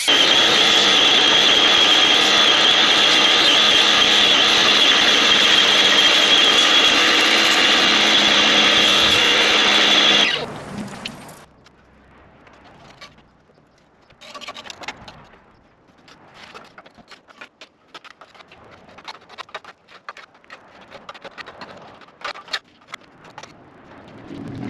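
Pressure washer running with a steady, loud whine and spray hiss, shutting off about ten seconds in. Quieter scattered clicks and knocks follow.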